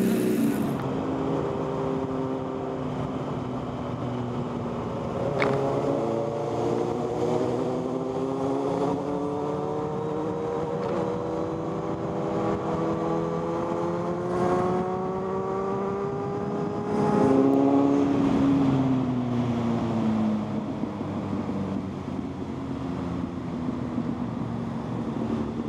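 Motorcycle engine heard from on board while riding in traffic, rising in pitch as it accelerates through the gears and dropping back at each change. The loudest burst comes a little past halfway, then the engine eases off with falling pitch.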